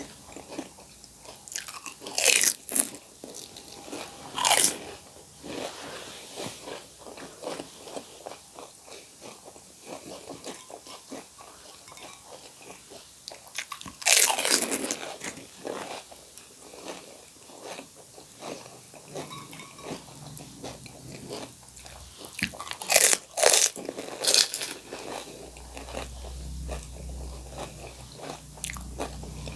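Crisp fried pani puri shells being bitten and crunched, with chewing between; the crunches are loudest about two, four and a half, fourteen and twenty-three seconds in. A low hum comes in near the end.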